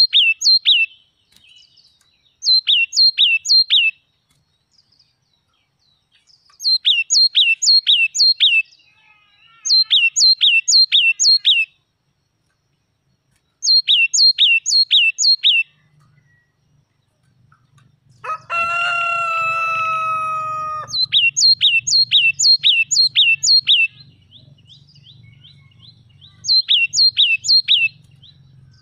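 Yellow-cheeked tit singing: repeated phrases of five to seven quick, sharp, falling notes, about four a second, with pauses between phrases. About two-thirds of the way through, a rooster crows once, a long call that falls slightly in pitch and is the loudest sound. A low hum runs under the second half.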